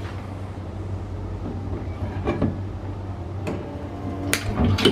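Stud-welder dent puller firing pins onto a car door panel: several sharp clicks in the second half, over a steady low hum.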